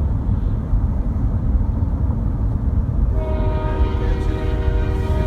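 A freight locomotive's air horn blows a steady multi-note chord, breaks off at the start, and sounds again about three seconds in, over a constant low rumble of the moving train and road noise.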